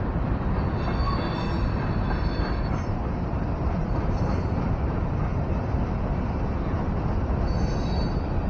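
Freight train's railcars rolling steadily past a road crossing: a continuous rumble and clatter. Faint high tones come and go about a second in and again near the end.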